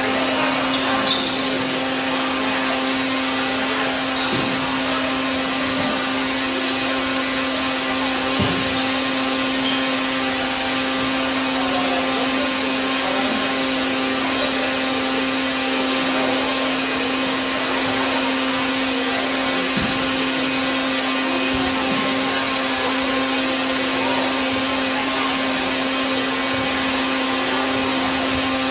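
A steady machine-like drone with a constant low hum, unchanging throughout, with a few faint knocks.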